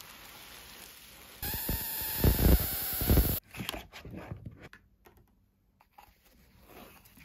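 Cardboard packaging handled while a box is unpacked: a loud patch of cardboard rubbing and sliding with low knocks, starting and stopping abruptly about a second and a half in, then scattered light clicks and taps as the lid and a foam sheet are lifted.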